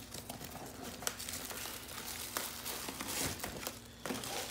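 Crinkling and crackling of plastic-wrapped expanding-foam packing as it is pulled out of a cardboard box, with scattered sharp clicks.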